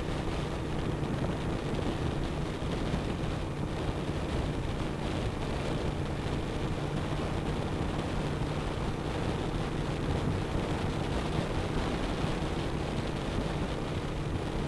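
2007 Suzuki SV1000S's 90-degree V-twin engine running at a steady highway cruising speed, with a constant drone under heavy wind noise on the microphone.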